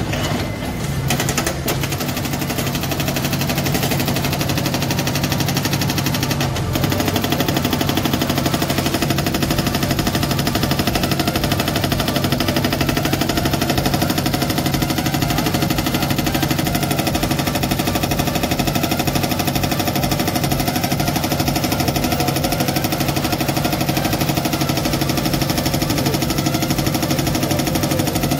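Hydraulic rock breaker on a JCB 3DX backhoe loader hammering into rock, a fast, steady rattle of blows over the diesel engine working under load. It gets slightly louder about seven seconds in.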